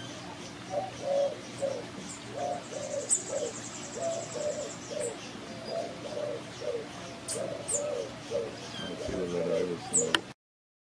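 White-winged dove cooing: a long run of low coos, about two a second, with faint high chirps of small birds above it. The sound cuts off suddenly just before the end.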